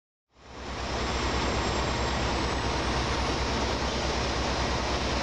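A heavy engine running steadily, with a rapid deep throb under a loud, even mechanical noise. It comes in suddenly just after the start.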